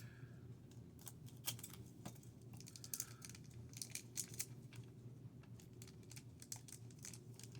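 Faint, irregular crisp clicks and crinkles of a baseball card pack's wrapper being opened and the cards handled, over a steady low hum.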